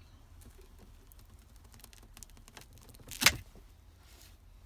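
Hand cable cutter cutting through a heavy 70mm battery cable: a few small clicks as the jaws work, then one loud sharp snap a little over three seconds in as the blades go through.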